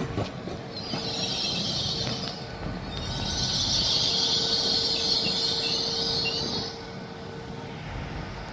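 Train running past on the rails, with a couple of knocks from the wheels at the start, then a high wheel squeal from about a second in that stops just before seven seconds, over a steady rumble.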